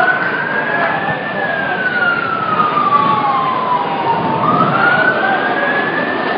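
Emergency vehicle siren in a slow wail, climbing twice to a peak and falling away more slowly each time, over steady background noise.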